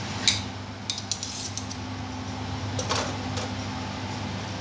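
Scattered light clinks and taps of metal cookware around a pot on a gas stove, about half a dozen sharp ticks, over a steady low hum.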